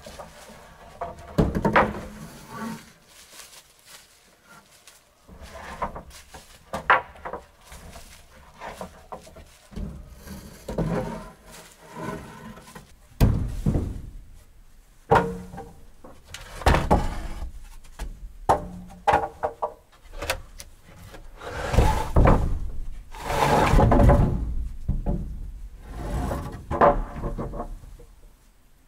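A long series of irregular knocks and thumps, some dull and heavy, some sharper.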